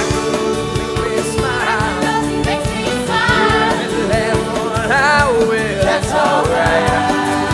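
Stage-musical song: a band plays sustained chords over a beat, and voices come in singing a melody about a second and a half in.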